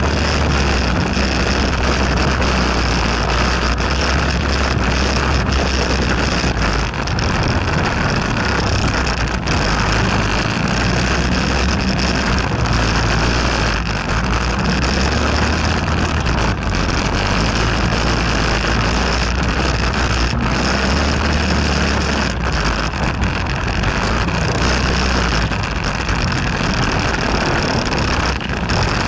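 Quad bike (ATV) engine running under way over rough ground, heard close from a camera mounted on the quad's front; its low note shifts up and down with the throttle.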